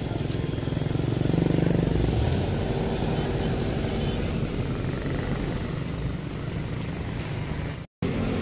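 A motor vehicle's engine passing close by over steady street traffic noise, loudest about a second and a half in. The sound drops out for an instant near the end.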